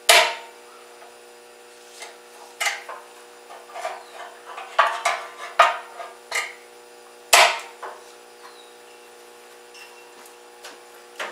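Irregular metal knocks and clanks as steel patch pieces and vise grip locking clamps are worked into place on a steel tractor wheel rim. There are about a dozen sharp knocks, the loudest right at the start and about seven seconds in, with a steady hum underneath.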